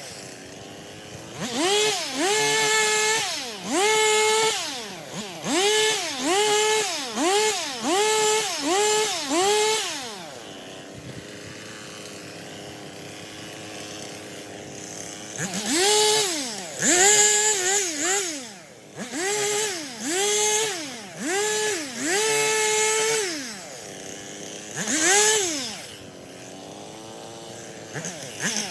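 Stihl two-stroke chainsaw revving up again and again in bursts of about a second, each time dropping back down. It settles to a steady idle for a few seconds in the middle and again near the end.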